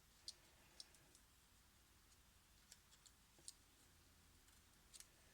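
Near silence with a few faint, sharp little clicks, about seven of them at irregular intervals, from small parts and tools being handled while a smartphone is taken apart and put back together.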